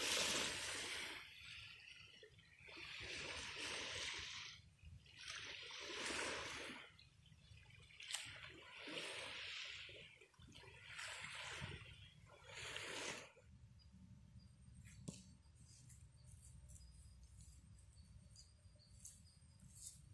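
Small waves washing onto a sandy beach: a swell of hissing wash every two to three seconds, dying away about two thirds of the way through.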